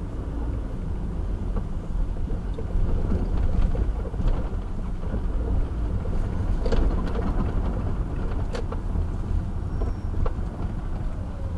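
A car's low engine and road rumble heard from inside the cabin as it drives through city traffic, with a few short knocks and rattles from bumps.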